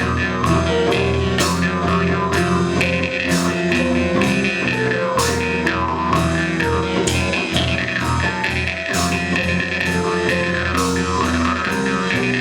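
Live blues-rock band playing an instrumental passage: drum kit keeping a steady beat with a cymbal or snare hit about once a second, under bass, keyboards and held melody notes.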